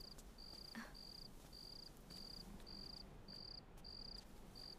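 Cricket chirping faintly, a short high chirp repeated evenly just under twice a second.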